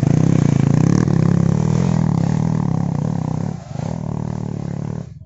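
Dirt bike engine revving hard under load as it climbs a steep trail, its pitch rising and falling with the throttle. The sound dips briefly a little over three seconds in, then cuts off suddenly near the end.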